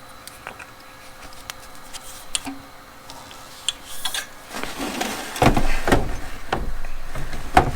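Handling noise from a cordless string trimmer: a few light clicks as a small cap is fitted back on, then louder rubbing and knocking from about halfway.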